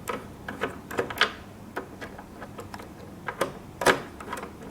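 Irregular small metal clicks and taps of a hand screwdriver with a magnetic tip working screws out of a treadmill console, the loudest about four seconds in.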